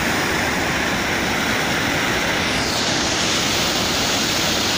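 Muddy floodwater pouring over a weir in a steady rush. A little past halfway the rush turns hissier.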